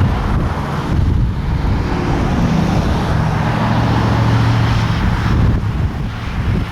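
Wind rumbling on the microphone over a vehicle running, with a steady low hum from about two seconds in that fades out about five and a half seconds in.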